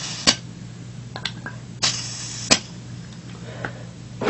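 Propane gas hissing in two short spurts at an airsoft pistol magazine's fill valve, each cut off by a sharp click, with a few light clicks between. The magazine has been filled a little too much, so it releases a lot of gas.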